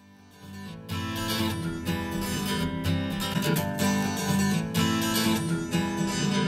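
A song led by strummed acoustic guitar with bass, played back through a pair of Tannoy Gold 8 studio monitors and picked up by a recorder's microphone. It fades in at the start and comes in at full level about a second in.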